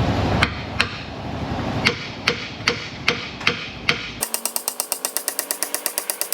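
Hammer tapping on a new steel suspension control arm, nudging it into line with its mounting bolt hole. Single sharp taps come about two or three a second, then about four seconds in a much faster, even run of quick taps begins.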